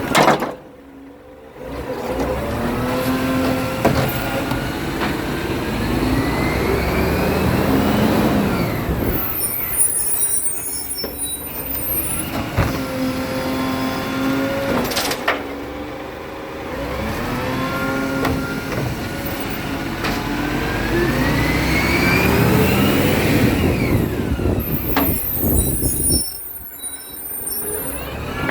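Garbage truck engine revving up and dropping back in two long cycles, each followed by a burst of hissing air, typical of the truck working its hydraulics to lift and empty a bin.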